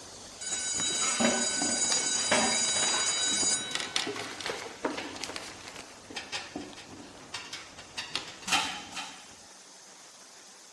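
A steady ringing for about three seconds, then a run of separate clicks and knocks, the sharpest near the end.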